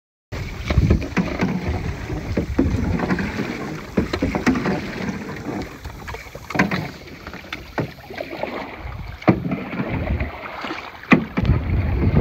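Paddling a small aluminium boat: wind rumbling on the microphone, water sloshing at the paddle, and several sharp knocks against the metal hull.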